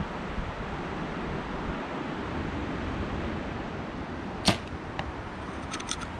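Compound bow shot: one sharp, loud snap of the string as the arrow is released about four and a half seconds in, followed by a faint tick and a few small clicks. Steady wind noise on the microphone underneath.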